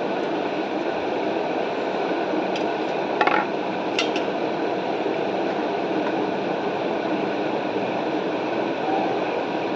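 Steady background hiss with a few light knocks about three to four seconds in, as a water bottle is set down.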